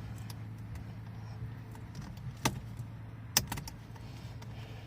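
A few sharp plastic clicks and taps as the small clips and tabs on the steering-wheel wiring are handled, the loudest about two and a half and three and a half seconds in, over a steady low hum.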